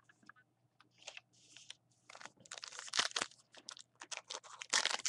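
Baseball card pack wrapper being torn open and crinkled by hand: scattered crackles at first, growing into dense crinkling about two seconds in and again near the end.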